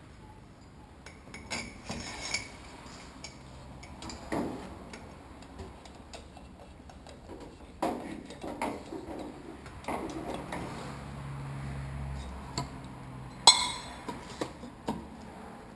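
Irregular light metal taps and clinks of tools working on a 1992 Honda CR250 upside-down fork leg, tapping at a damper that is stuck at a sticking point in the tube. The sharpest strike comes about 13 seconds in.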